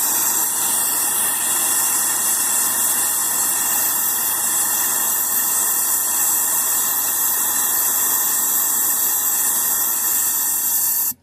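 Loud, steady rushing hiss of moving air with faint steady whining tones in it, switched on suddenly and cut off suddenly near the end.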